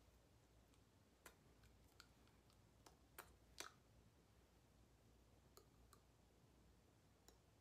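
Near silence: room tone with a low hum and a handful of faint, sharp clicks scattered through it, the loudest about three and a half seconds in.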